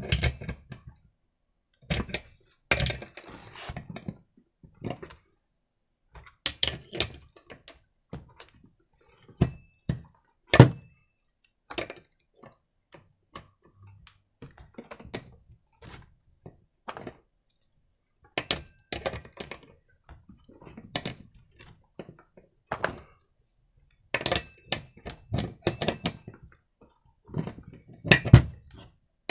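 Irregular metal knocks, clicks and scrapes of a long wrench bar working on a chainsaw's clutch as it is tightened, with a sharp loud knock about ten seconds in and another near the end.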